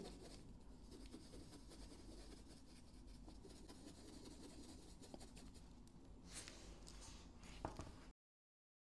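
Faint scratchy rubbing of a nearly dry paintbrush dabbing paint onto grained leather, with a slightly louder stroke about six seconds in. The sound cuts to dead silence just before the end.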